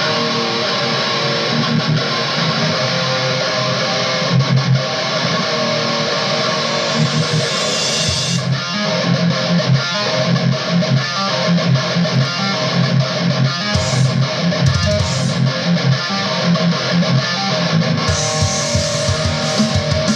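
A rock song with electric guitar and bass, playing continuously.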